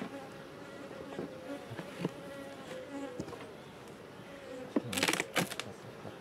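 Honeybees buzzing over an open hive, one flying close with a steady, slightly wavering hum. About five seconds in, a short burst of sharp clicks and scraping as the hive's plastic frames are handled.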